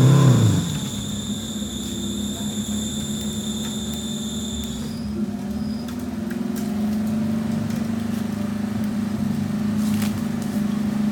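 Off-road 4x4 vehicle engine, revved up and back down at the very start, then running steadily, its pitch creeping up after about six seconds. A steady high whine stops about five seconds in.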